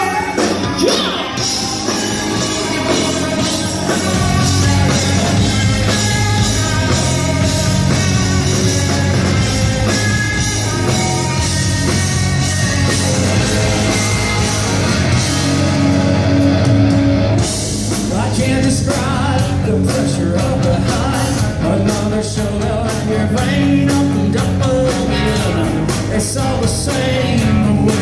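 Live rock band playing a song: lead vocals over electric guitars, bass guitar and drums.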